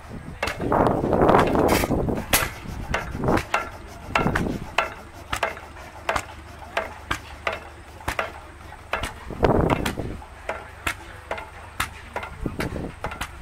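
Witte single-cylinder stationary gas engine running, with sharp regular knocks about two a second and louder, fuller bursts every few seconds.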